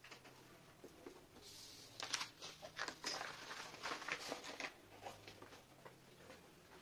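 Sheet of paper rustling and crinkling as it is lifted and moved: a cluster of short, crisp rustles and taps lasting about three seconds, starting a second and a half in.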